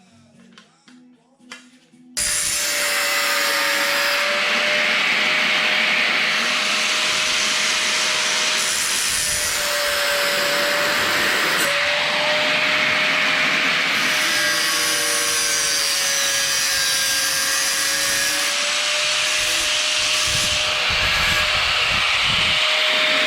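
Handheld electric power tool cutting, its motor running steadily for about twenty seconds. It starts abruptly about two seconds in and stops just before the end, its pitch wavering slightly under load.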